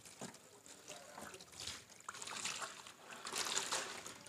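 Water poured from a plastic jug into a plastic basin holding dye powders and soda ash, trickling and splashing. The pour gets louder in the second half. The water is being mixed into a batik dye solution.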